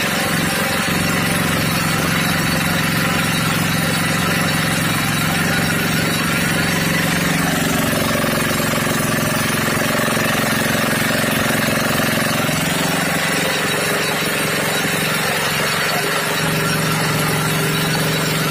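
Greaves MK12 mini petrol engine, freshly rebuilt with new piston rings, running steadily and driving a concrete needle vibrator. Its pitch shifts slightly a few times.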